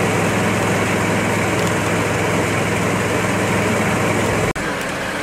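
Steady noise of a car burning, with a low steady hum like an idling engine underneath. About four and a half seconds in, the sound cuts abruptly to a quieter, hissier background.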